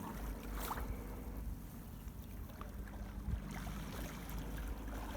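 Seaside ambience: a steady low rumble of wind on the microphone, with faint sea wash behind it.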